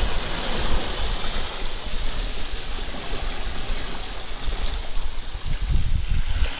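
Sea waves washing onto a sandy beach in a steady rush, with wind buffeting the microphone in irregular low gusts.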